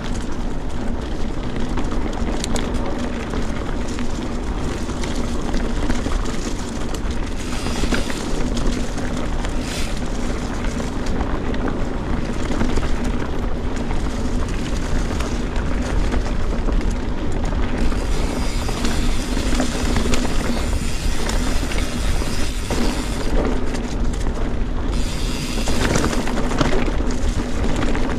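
Canyon Neuron full-suspension mountain bike on Maxxis Forekaster 29x2.20 tyres riding over rough, rocky trail: steady wind rush on the action-camera microphone with tyre rumble and the rattle of the bike, plus a few sharper knocks from stones.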